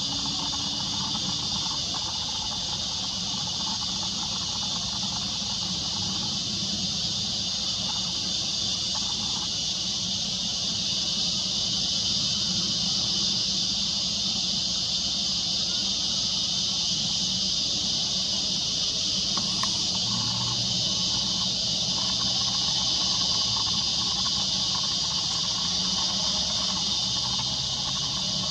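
Steady, high-pitched insect chorus, with a faint low rumble underneath that rises slightly about a third of the way through.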